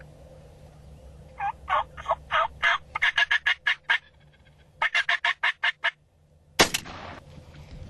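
Eastern wild turkeys calling: a run of separate yelping notes, then two rapid rattling gobbles, each about a second long. About two thirds of the way in, a single loud gunshot cracks out and echoes briefly: the shot taken at the gobbler.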